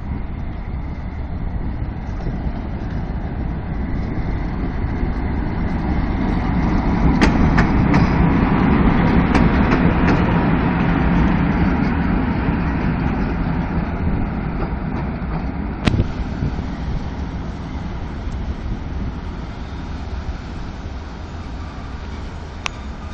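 ET22 six-axle electric freight locomotive running light, with no wagons, passing by. Its noise swells as it draws level about ten seconds in and fades as it moves away, with a few sharp clicks as it passes.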